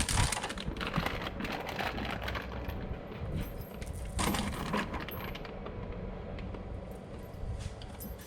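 Light metallic clinks and rattles: a run of small clicks in the first couple of seconds and another cluster about four seconds in.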